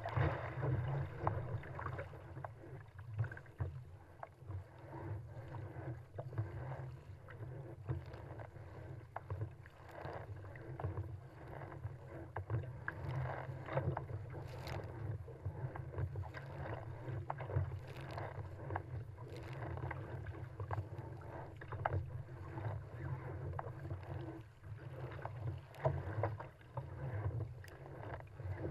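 Water rushing and splashing against the hull of a small paddle craft running downwind through choppy sea, with irregular slaps of chop throughout, over a steady low wind rumble on the microphone.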